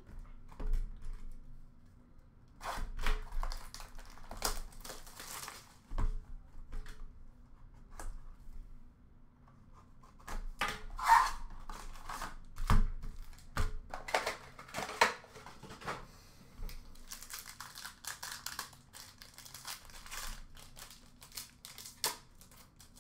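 Upper Deck Allure hockey card box being opened by hand: cardboard and wrapper tearing and rustling, with several sharp knocks as the box is handled. Later a card pack's wrapper crinkles and tears as it is opened.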